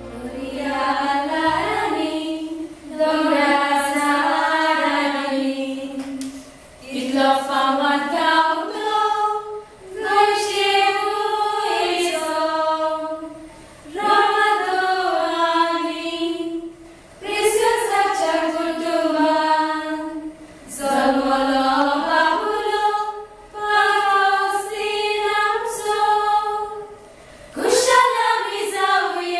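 A small choir of young women singing unaccompanied, in sung phrases of two to three seconds with short breaks between them.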